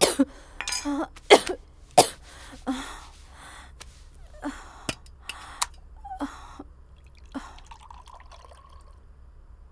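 A person coughing in a long fit of repeated coughs that grow weaker and further apart, dying away about eight seconds in.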